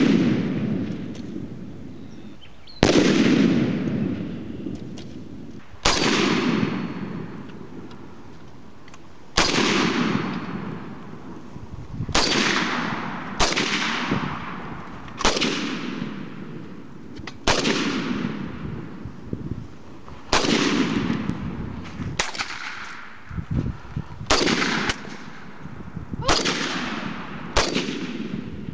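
Springfield Armory M1A semi-automatic rifle in .308 / 7.62x51 NATO firing a slow string of about thirteen shots, one to three seconds apart, some in quick pairs, each followed by a long echo.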